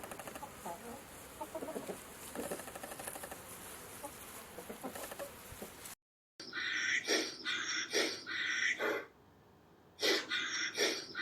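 A quieter run of rapid soft clicking pulses, then, after a short cut, a chicken's loud squawking calls: a group of about four, a pause, then three more.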